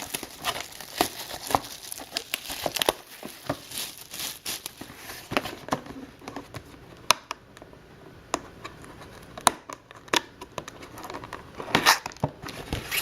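Wrapping on a box of trading cards being torn open and crinkled by hand, with many sharp, irregular crackles.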